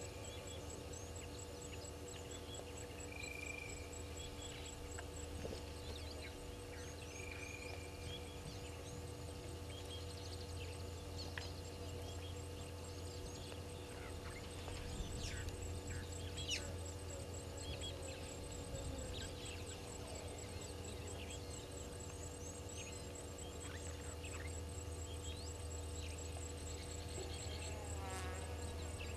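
Outdoor bush ambience: an insect ticking steadily at a high pitch, with scattered short bird chirps and a few brief repeated whistled calls, over a constant low hum.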